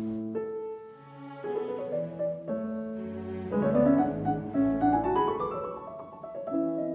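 Background music: slow piano with held bowed-string notes.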